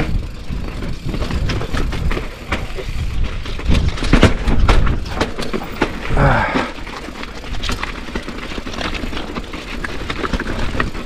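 Mountain bike rolling down a steep rock slab: a constant low rumble from the tyres on rock, with frequent sharp clacks and rattles from the bike over the bumps. A brief vocal sound from the rider about six seconds in.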